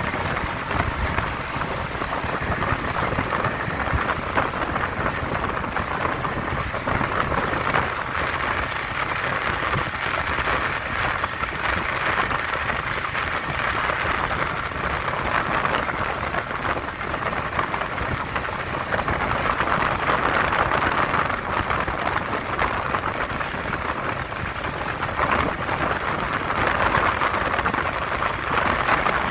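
Steady rushing hiss of water and wind past a moving motorboat, with a low rumble underneath.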